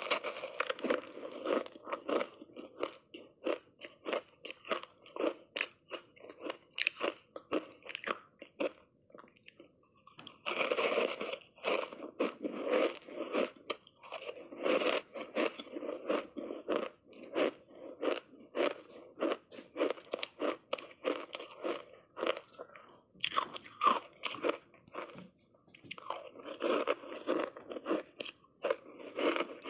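Matcha-powdered ice being bitten and chewed: a dense run of sharp, irregular crunches, with a couple of short lulls.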